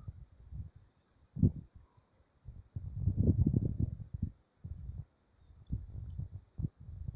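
Insects, crickets by their sound, chirring in a steady high drone throughout, with intermittent low rumbles on the microphone.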